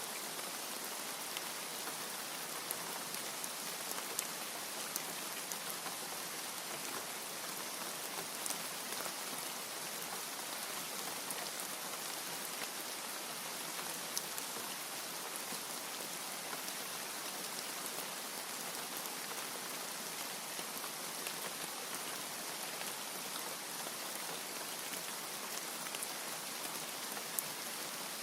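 Steady rain: an even hiss with scattered sharp ticks of single drops striking close by.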